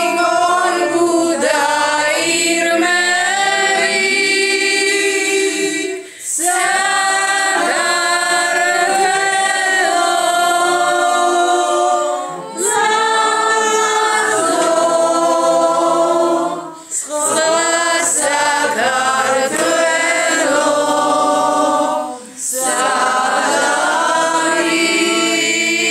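A small group of women singing a song together without accompaniment, several voices at once. They sing in phrases of about five seconds, with brief breaks for breath between them.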